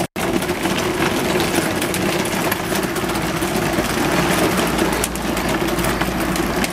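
A child's red ride-on go-kart's wheels rolling over paving stones, a continuous rattling rumble.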